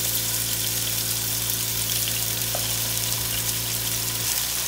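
Sliced chicken breast searing in hot oil in a frying pan, giving a steady sizzle. A low steady hum underneath cuts off near the end.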